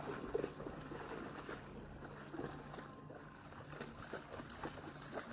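Faint lakeside ambience: light wind and small ripples lapping, with scattered soft ticks and a faint, low, steady hum underneath.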